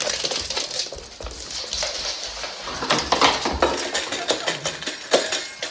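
A dog eating from a stainless steel bowl, its muzzle and food clattering and scraping against the metal in quick, irregular clicks, with a couple of louder knocks against the bowl.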